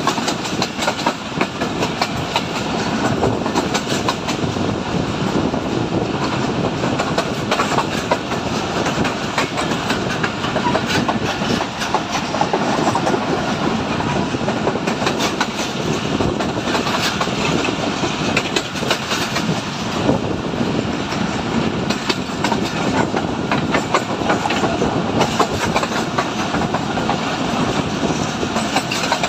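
Pakistan Railways passenger railcar running along the track at speed: a steady rumble of wheels on rails with frequent clicks.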